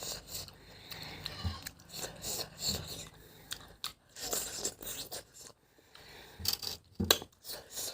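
A person eating close to the microphone: irregular biting, crunching and chewing with wet mouth sounds.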